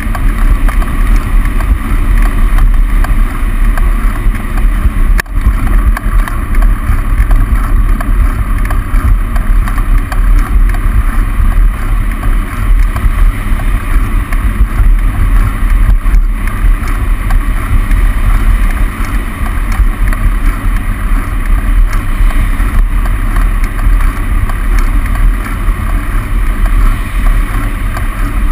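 Wind buffeting a bicycle-mounted camera's microphone while riding, mixed with the steady rumble of car traffic in a road tunnel.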